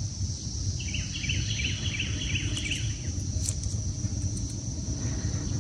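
A songbird singing a quick run of about eight repeated chirps, about four a second, over a steady high drone of insects and a steady low rumble.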